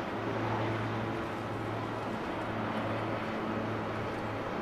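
Jet engines of a Boeing 747-400 running at the airport: a steady rush with a constant low hum under it.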